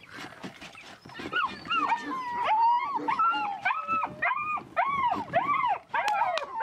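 Puppy whining and yelping over and over: a fast run of high-pitched, arching cries that starts about a second in.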